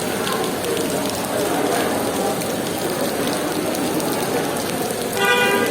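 Rain falling steadily on surfaces. Near the end a short pitched sound, such as a voice, rises briefly above the rain.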